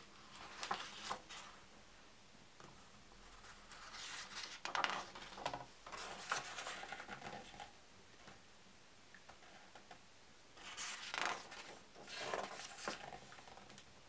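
A hardcover book being opened by hand and its stiff paper pages turned: papery rustling and sliding in four bursts, with quiet pauses between them.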